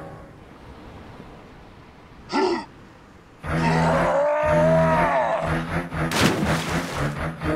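Cartoon sound effects for a stop-motion animation: a short vocal-like grunt about two and a half seconds in, then from about halfway a loud yell whose pitch arches up and then falls, over returning background music, and a sharp hit about six seconds in.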